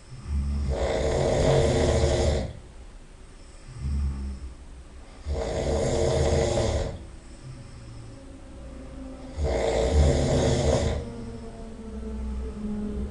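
A person snoring loudly: three long snores of about two seconds each, roughly four to five seconds apart, with quieter breathing between.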